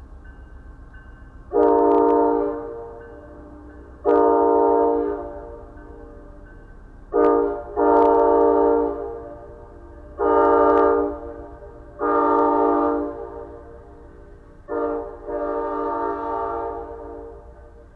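Amtrak Downeaster train's air horn sounding the grade-crossing signal twice: long, long, short, long, then long, long, short, long. The train rumbles steadily underneath.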